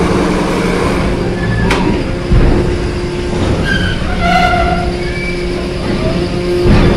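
A large coach bus's engine running as it rolls slowly across a ferry's steel-grated loading ramp, with a sharp metallic clank about two seconds in and another heavy thump near the end.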